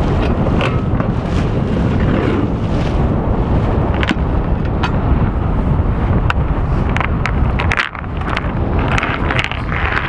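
Wind buffeting the microphone on a sailboat's foredeck. A few sharp clicks come through in the second half.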